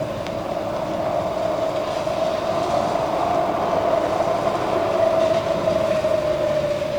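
A steady, noisy howling drone with one pitch that rises slightly toward the middle and sinks back, over a low rumble: an eerie sound effect from a Halloween sound-effects tape.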